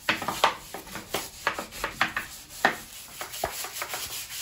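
Brush scrubbing a dirty bathroom surface in short, uneven strokes, about two to three a second.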